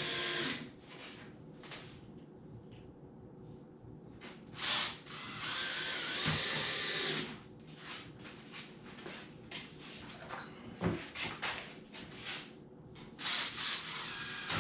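Power drill driving drywall screws into foam board, running in several bursts of one to two seconds. Clicks and handling knocks fall between the bursts.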